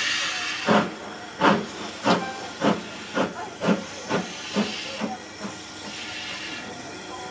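Ivatt Class 2MT steam locomotive 46447 starting away: a steam hiss, then about ten exhaust chuffs that quicken and fade as it gathers speed. Hiss again near the end.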